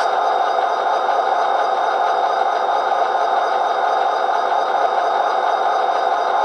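Sound decoder in an HO-scale SD40-2 model locomotive playing a steady EMD diesel engine running sound. It comes through the model's tiny speaker, so the low end is missing.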